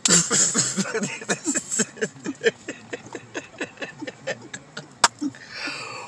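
A woman laughing: a long run of short, breathy ha-ha pulses, loudest at the start and tapering off. A single sharp click about five seconds in.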